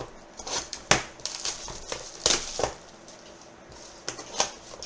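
Plastic shrink-wrap crinkling and tearing as a trading-card hobby box is unwrapped and opened, in a run of irregular sharp crackles and rustles.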